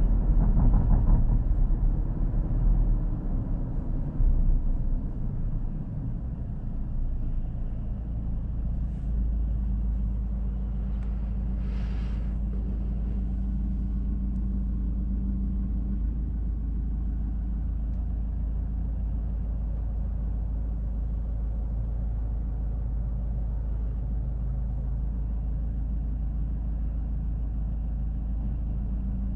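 Ford Ranger pickup heard from the driver's seat: engine and road rumble while driving that fades over the first several seconds as the truck slows through a turn, then a steady low engine idle while stopped.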